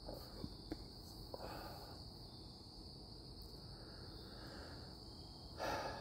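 Crickets chirring steadily in a high-pitched chorus, with a few faint clicks early on and a short rush of noise near the end.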